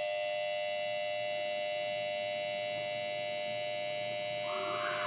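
A steady, high electronic buzzer tone with overtones, held without a break; a brief rustle near the end.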